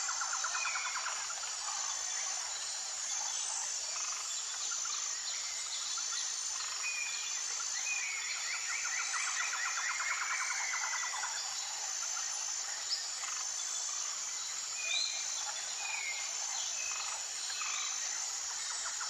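Forest ambience: a steady high insect drone with a pulsing note about once a second, rapid trilling calls now and then, and scattered short bird chirps.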